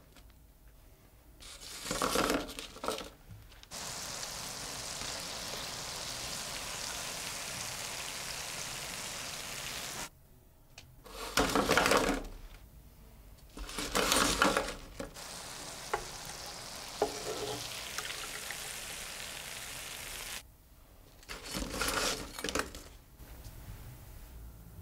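Dough balls deep-frying in hot oil, a steady sizzle. It is broken four times by short clattering bursts as a slotted metal skimmer tips batches of fried balls onto a parchment-lined metal baking tray.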